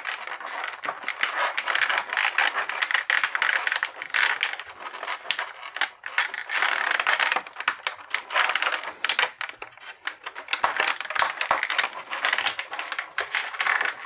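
Thin clear plastic blister tray crinkling and crackling in the hands as an action figure is pushed and twisted out of it: a dense, unbroken run of small clicks and crackles.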